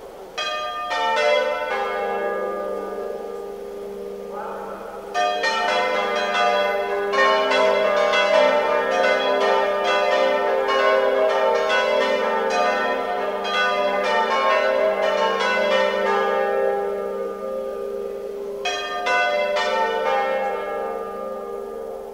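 Several church bells rung by hand in the belfry, in the Bolognese manner of ringing: a short run of strikes near the start, then a long dense stretch of overlapping strikes from about five seconds in, and a brief run again near the end. The bells' deep hum keeps ringing between the strikes.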